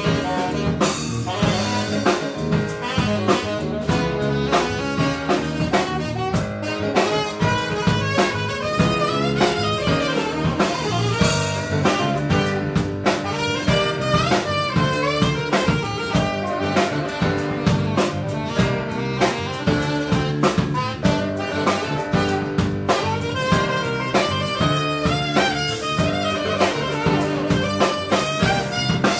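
Live instrumental jazz band: a saxophone plays a busy lead line over electric bass and a drum kit, with cymbal crashes about a second in and again about a third of the way through.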